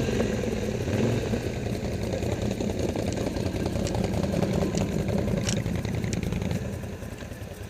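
ATV engine running at a steady idle close by, with a few faint clicks; it drops quieter near the end.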